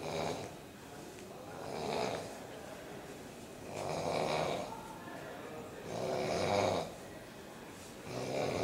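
A sleeping person snoring in a repeating cycle, one snore about every two seconds.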